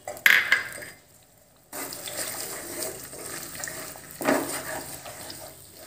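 Eggs sizzling in hot oil in a nonstick pan, with a wooden spatula scraping and breaking them up about four seconds in. A short clatter comes at the very start.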